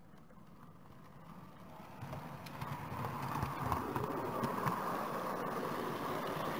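Model railway train carrying the camera running along the track, its wheels clattering over the rails. It starts quiet and grows louder from about two seconds in as the train gets under way.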